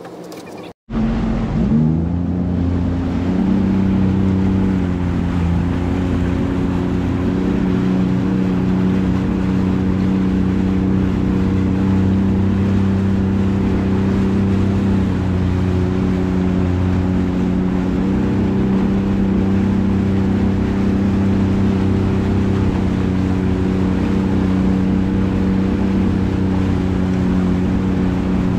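Sea-Doo personal watercraft engine running at low speed on the water. It is a steady drone that starts abruptly about a second in, rises slightly in pitch over the next couple of seconds, then holds with small shifts in pitch.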